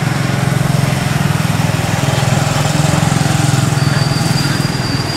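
A small engine running steadily: a continuous low hum with a fast, even pulse.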